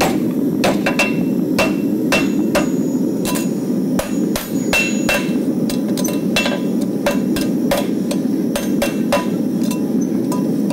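Farrier's rounding hammer striking a red-hot steel horseshoe on an 84-pound steel anvil, about two to three blows a second in an uneven rhythm, each with a short metallic ring: the shoe is being hot-shaped into a hind shoe, its branches straightened. A steady low rush runs underneath.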